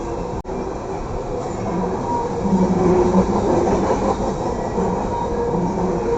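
Coal train cars rolling past at close range: a continuous rumble and rattle of wheels on rail, with low tones from the wheels that come and go. A brief dropout in the sound just under half a second in.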